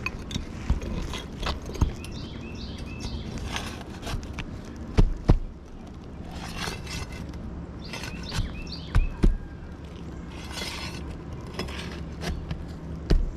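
Sharp knocks and scraping clicks of asphalt shingles being worked loose on a roof, loudest as double knocks about five and nine seconds in and a single knock near the end. Birds chirp briefly a few times.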